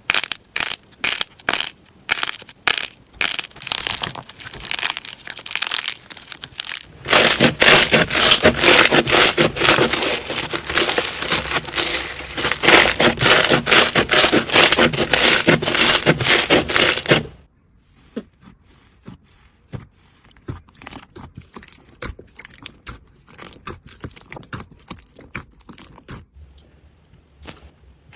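Slime being pressed and squished by hand, giving a string of sharp clicks and pops. The clicks are spaced at first, come thick and loud from about seven seconds in, then thin out and go quieter after about seventeen seconds.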